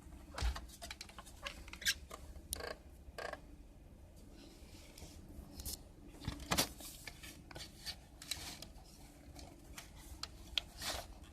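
Irregular clicks, taps and short scrapes of wires and a cable being handled and pulled behind a car's dashboard radio, over a faint steady low hum.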